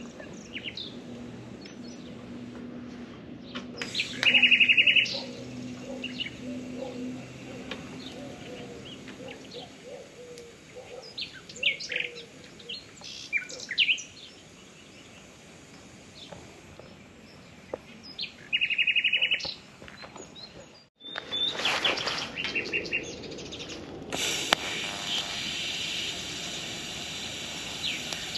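Small birds chirping and singing, with two loud, fast trills close by, about four seconds in and again about nineteen seconds in. In the last few seconds a steady hiss comes in from a TIG welding arc on stainless steel tube.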